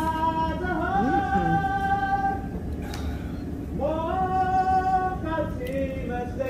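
Music with a woman singing long held notes that slide between pitches, in phrases with short breaks.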